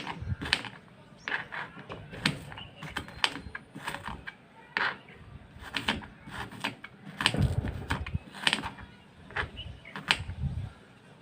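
Knife chopping on a cutting board: irregular sharp knocks, about one or two a second, some with a dull thud from the board.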